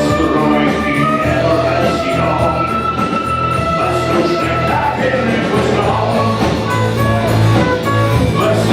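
Live rock band playing a song: steady bass and drums under held melody notes, with singing.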